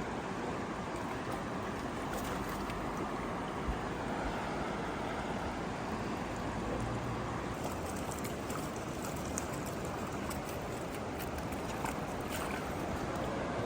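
Verde River floodwater rushing steadily in a continuous noise, with a few faint ticks now and then.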